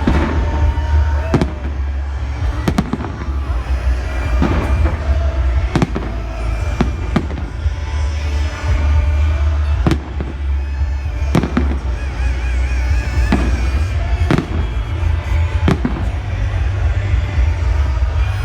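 Aerial fireworks display: a steady run of loud bangs, one every second or two, over a continuous low rumble.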